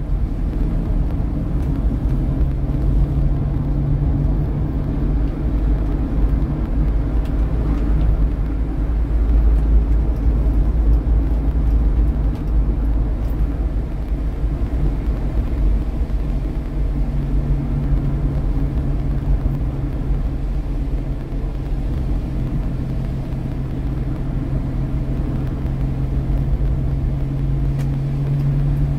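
Chevrolet Chevette DL driving, heard from inside its cabin: a steady low engine drone and road rumble. A low engine hum stands out from the road noise a couple of seconds in, and again through the second half.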